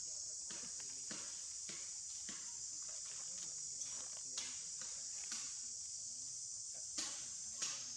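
Steady high-pitched drone of insects, with a few faint clicks and taps scattered through, the two loudest near the end.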